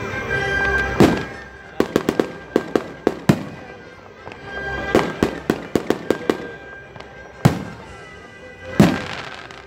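Fireworks going off. There is a single loud bang about a second in, then two quick strings of sharp pops, and two more single bangs near the end.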